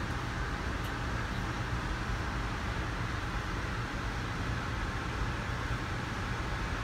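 Steady low rumble and hiss inside an Amtrak passenger coach as a train pulls out on the next track, heard muffled through the car's windows and body.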